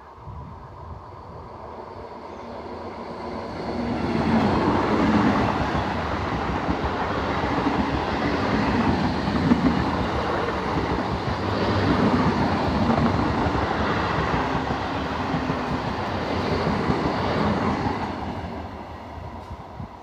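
Electric multiple unit (EMU) suburban local train passing close by, its wheels rumbling and clattering over the rails. The sound grows over the first few seconds, stays loud through most of the pass, and fades near the end as the train pulls away.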